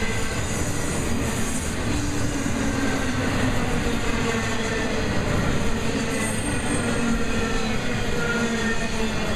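Intermodal flatcars carrying highway trailers and containers rolling past, giving a steady, loud wheel-on-rail rumble with faint squealing tones from the wheels.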